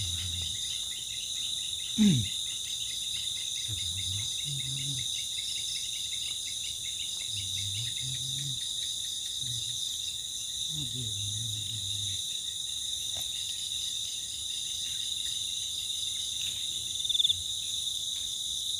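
Night chorus of insects, crickets trilling steadily in several high bands. There are a few short, low sounds, the loudest about two seconds in.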